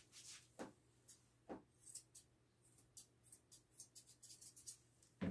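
Grooming shears snipping through a standard poodle's curly coat in faint, quick, irregular snips. A soft knock comes right at the end.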